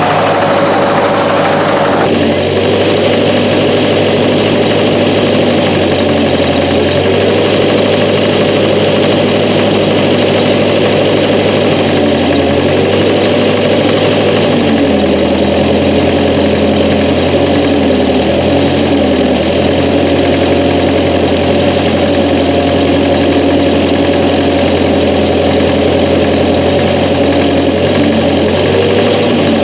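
Massey Ferguson 202's Continental Z134 four-cylinder engine running steadily while the backhoe works. Its pitch sags and recovers several times in the second half as it takes load.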